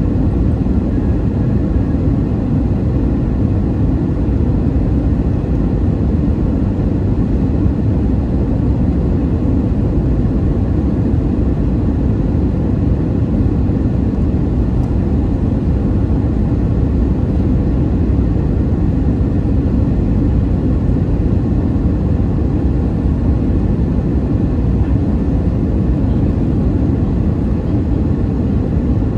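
Steady cabin noise of a JetBlue airliner descending on approach, heard from inside: the engines and rushing air make a constant low rumble with faint steady engine tones above it.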